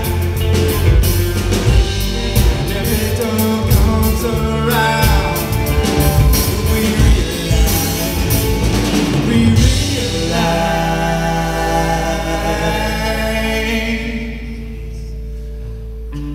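Live reggae band playing, with electric guitars, upright bass and drum kit. About ten seconds in the drums drop out, leaving long held notes that grow quieter near the end.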